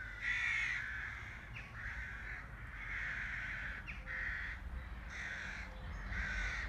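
A bird calling over and over: about six separate calls, most about half a second long, with one longer call near the middle.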